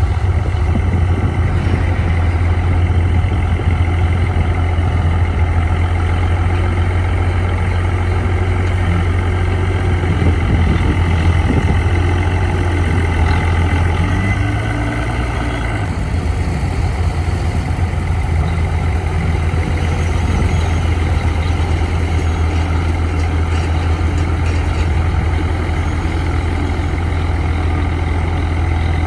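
Heavy diesel engine of earthmoving machinery running steadily, with a brief rise in engine pitch about halfway through.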